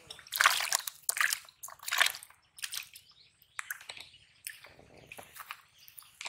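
A freshly caught fish thrashing in a plastic basin of water: three loud splashes in the first two seconds, then weaker splashes and sloshing.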